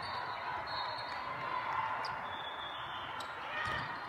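Steady din of a crowded gym during volleyball play, with a faint ball hit or two.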